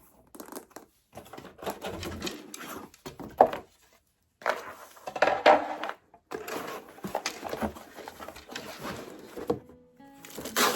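Irregular knocking, clattering and rustling of flat-pack furniture parts and hardware being handled during assembly, breaking off briefly twice.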